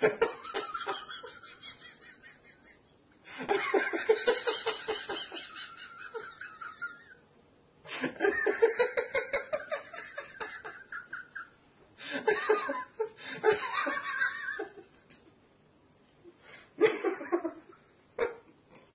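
A man laughing hard in four long bouts with short pauses between them.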